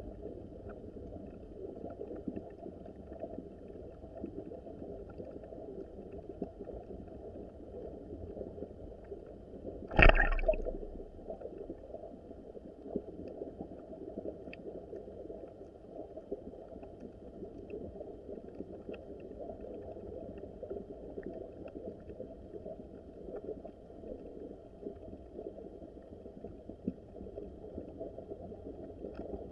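Small mountain stream flowing and gurgling, heard dull and muffled. About ten seconds in there is a single loud thump.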